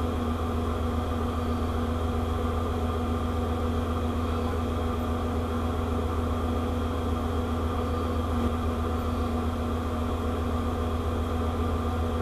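Steady drone of a ship's running machinery heard on deck: a low hum with several steady tones over it, unchanging throughout.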